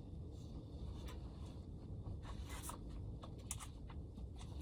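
Faint rustling and scraping with a few light clicks, as of paper and packaging being handled, over a low steady rumble.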